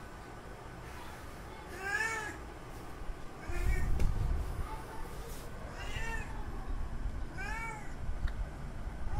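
Male domestic cat's mating call to a female in heat: four drawn-out meows about two seconds apart, each rising then falling in pitch, the second one short. A burst of low rumbling noise comes with the second call.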